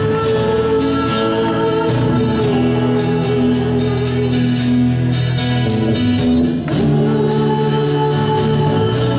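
Live gospel song: sustained keyboard chords over a steady beat of drum and tambourine hits.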